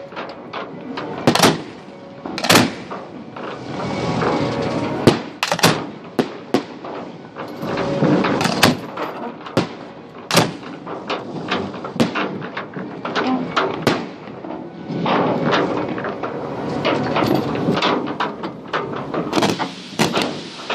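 Fireworks display: an irregular series of sharp bangs from bursting shells, a dozen or more, the loudest about a second and a half, two and a half, five and ten seconds in, over a continuous crackle and rumble.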